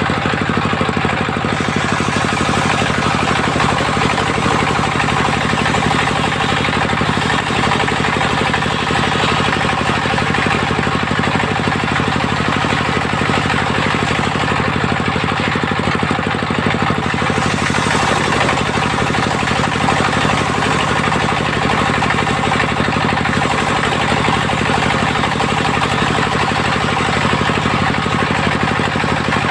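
Engine-driven mobile circular sawmill running steadily at a constant, unchanging pace.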